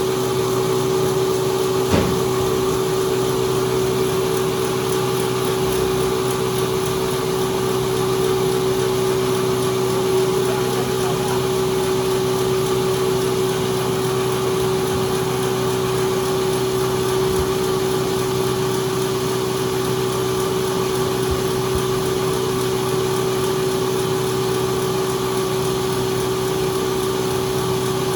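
Sawmill machinery running steadily with a constant hum that holds one pitch throughout, with a single sharp click about two seconds in.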